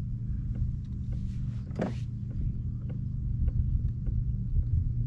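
A steady low motor hum with level tones, and scattered light clicks. A short rising-and-falling sound comes about two seconds in.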